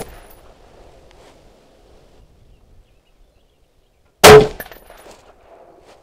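A .308 Daniel Defense DD5V2 semi-automatic rifle fires a single shot a little over four seconds in, its report trailing off over about half a second. At the start, the tail of the previous shot is still dying away.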